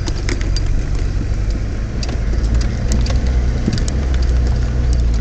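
Nissan Patrol GR Y60's diesel engine running steadily, heard from inside the cabin as a low drone, with scattered clicks and knocks as the vehicle drives over a dirt track.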